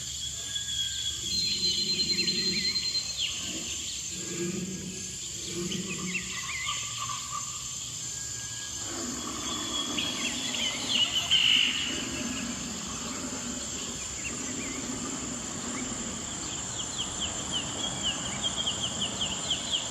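Marker tip scratching on paper in short strokes while eyes are drawn and coloured in, over a steady high drone of crickets.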